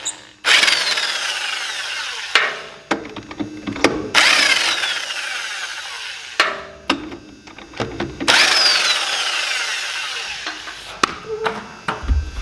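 Wood chipper wheel spun by hand three times, its bearing making a rough grinding whir that falls in pitch as the wheel coasts down each time: a sign that the long-idle bearing needs attention.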